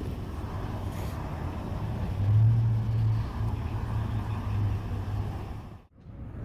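A motor vehicle's engine running nearby with a steady low hum that swells for a few seconds in the middle, then the sound cuts out briefly near the end.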